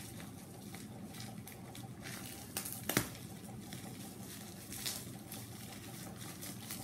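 Bubble wrap crinkling and rustling as it is pulled off a rolled-up mat, with scattered crackles and one sharper snap about three seconds in.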